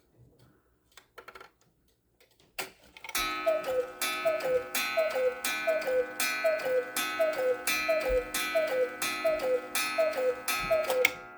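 Hones German cuckoo clock calling the hour: a few mechanical clicks from the movement as it trips, then a long even run of two-note falling cuckoo calls from its bellows pipes, about one every 0.7 seconds, ending near the end.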